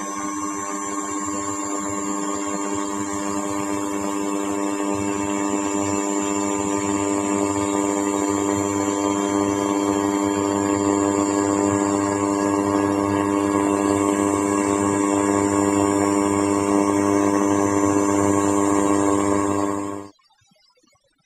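Leica RTC360 3D laser scanner running a scan: a steady mechanical whine and hum from the motors spinning its mirror and turning its head. It grows slightly louder, then cuts off suddenly near the end.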